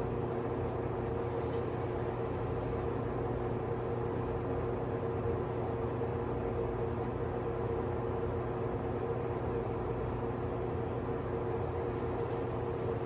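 A steady background hum with a constant low drone, unchanging throughout.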